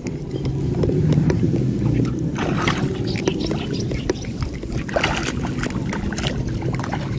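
A motor running steadily with a low hum, with short bursts of hiss about two and a half seconds in and again near five seconds.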